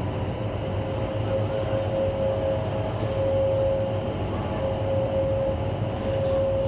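Steady roar of an indoor skydiving vertical wind tunnel, its fans driving the airflow, with a steady humming tone over the rush of air.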